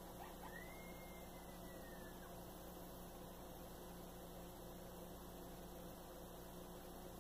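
Faint steady electrical mains hum. About half a second in, a faint high drawn-out call rises, then glides slowly down over about two seconds.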